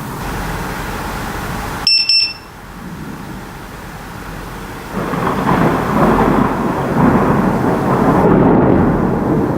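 Steady rain, broken about two seconds in by two short, high electronic beeps from a Strike Alert HD lightning detector signalling a lightning strike. From about five seconds, loud thunder rolls in and rumbles on, swelling and fading, over the rain.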